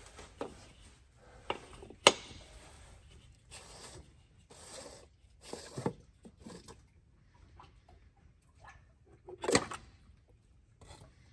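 Tool and handling noise from loosening a John Deere tractor's oil filter housing cap: a wrench clicking on the cap, then scattered knocks and scraping as the cap is turned off by hand. The sharpest click comes about two seconds in and the loudest knock near the end.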